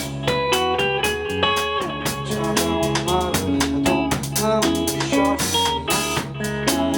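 Rock band playing live: guitar notes, some bent up and down in pitch, over a drum kit and low bass notes.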